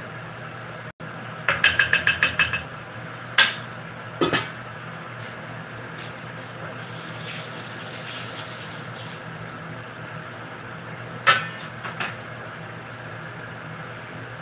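Kitchen work over a steady low hum. About two seconds in comes a quick run of about eight light, ringing metal taps, then separate clanks of cookware, and a few seconds of running water near the middle.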